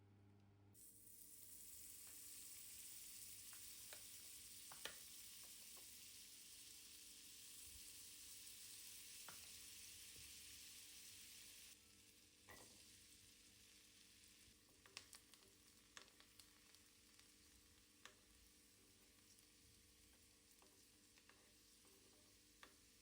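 Faint sizzling of food frying in a pan, which stops abruptly about twelve seconds in; after that, a few light clicks and taps.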